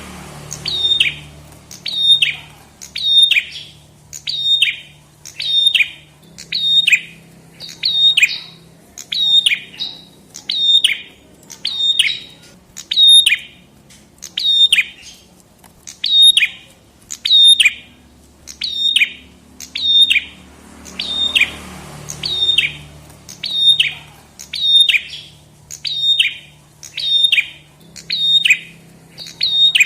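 Prenjak kepala merah songbird calling. It repeats a sharp, high, downward-sweeping note in quick, even succession.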